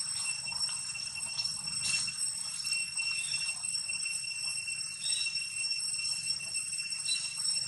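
Steady high-pitched insect drone, one unbroken tone with overtones, with a few faint rustles.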